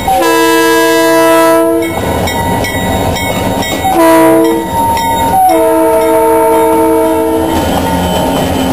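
A freight train's lead diesel locomotive sounds its air horn three times as it passes close by: a long chord, a short one, then another long one. Under the horn the diesel engines rumble and the wheels clack over the rails.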